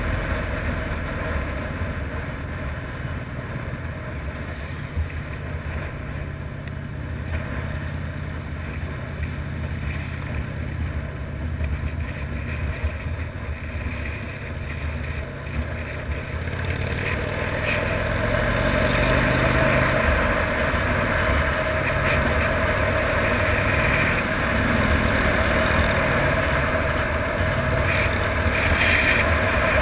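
Harley-Davidson FXRDI's V-twin engine running steadily on the move, mixed with wind rush on the microphone. It gets louder about halfway through.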